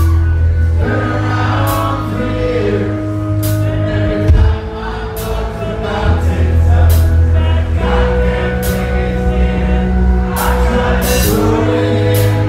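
Live punk rock band playing loud: electric bass holding long low notes that change every few seconds, drums with repeated cymbal crashes, and a man singing.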